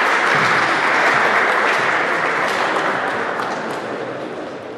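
A crowd applauding in a sports hall: dense clapping that tapers off over the last couple of seconds.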